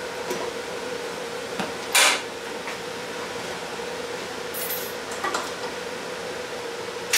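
Metal clinking on a steel welding table as a TIG torch and a chainsaw chain are handled: a few sharp clinks, the loudest about two seconds in and another at the very end, over a steady machine hum.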